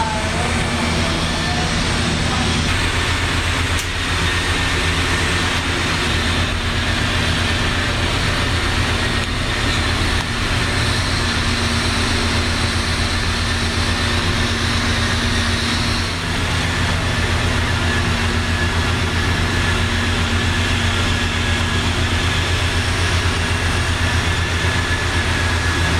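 TIG welding on a 2-inch steel pipe joint: the arc's steady hiss over the low, even hum of the welding setup, with a faint high whistle.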